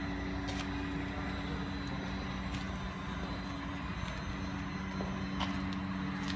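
Steady mechanical hum of a workshop bay, holding two constant low tones, with a few faint clicks.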